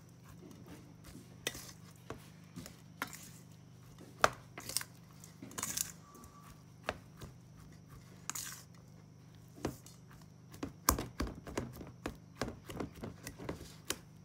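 Plastic rice paddle scraping and tapping against a stainless steel mixing bowl as seasoned cooked rice is stirred and pressed, in irregular knocks and scrapes that come thicker near the end.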